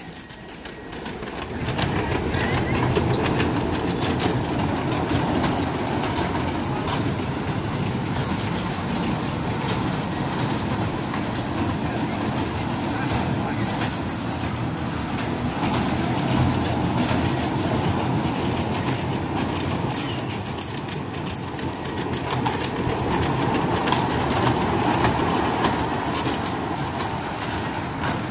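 Ride-on kiddie train running along its small track with a steady rumble.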